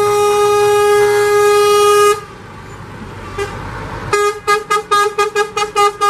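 Scania lorry's horn: one steady blast of about two seconds, then engine and road noise, then a quick run of short toots, about four a second.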